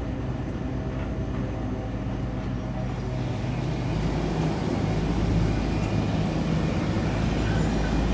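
Steady engine drone on an airport apron: a low hum under a rushing noise that gets louder about three seconds in.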